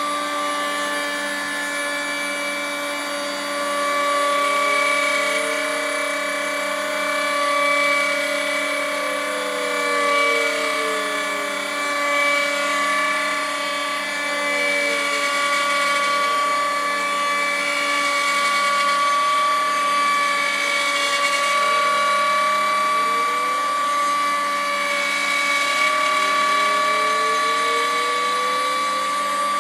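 Homemade CNC router milling a wooden board: the router spindle runs with a steady high whine. The stepper motors driving the lead screws add a lower whine that rises and falls in pitch again and again as the axes speed up and slow down.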